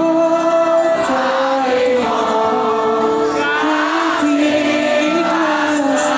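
Live band performing a Javanese-language pop ballad, with a large concert crowd singing the melody along in unison.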